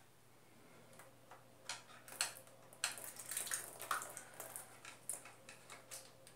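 Screwdriver and hands working on the plastic casing of a split-type air conditioner's indoor unit as it is taken apart: a quick irregular string of clicks, scrapes and plastic rattles, starting about two seconds in and busiest in the middle.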